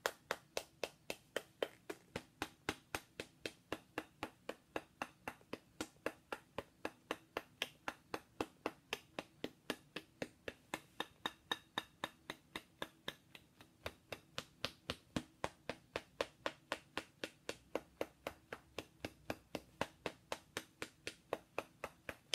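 Rapid, steady tapping of a small clear hand-held tool against a figurine: sharp, even taps about four a second, with a brief pause about halfway through.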